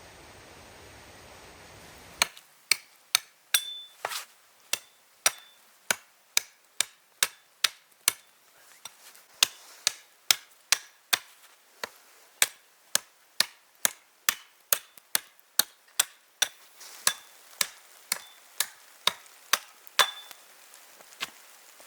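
A steady hiss for about two seconds, then a long even run of hand-tool blows at about two a second, some with a brief metallic ring.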